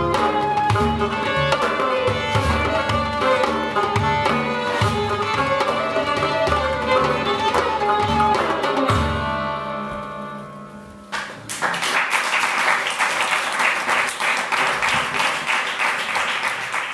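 A small ensemble of rubab, violin, daf frame drum and darbuka playing the closing bars of a piece. The music stops on a final stroke about nine seconds in and rings out, then an audience applauds.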